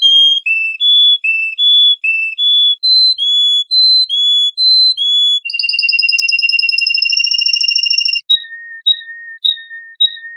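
Songbird singing: a run of clear, short whistled notes stepping between a few pitches, then a steady trill lasting about three seconds, then a string of short, lower notes.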